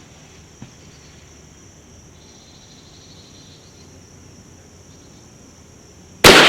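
A single .22 WMR rimfire rifle shot, a sharp loud crack with a short echoing tail, fired near the end. Before it, insects chirr faintly and steadily in the background.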